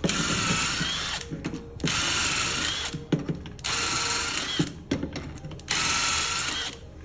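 Power drill with a self-centring Vix bit drilling the four screw holes through a door hinge into the wooden dowels that plug the old stripped holes: four short runs of about a second each, one per hole, with a steady whine.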